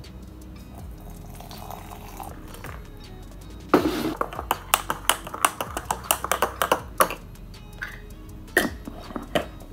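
Background music with a teaspoon clinking quickly and unevenly against a ceramic mug as a drink is stirred, in a run from about four to seven seconds in, and a few more clinks near the end.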